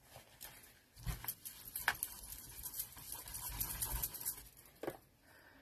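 A plastic sheet protector being wiped clean by hand: a few seconds of rustling, rubbing plastic with small crinkles and taps, stopping about five seconds in.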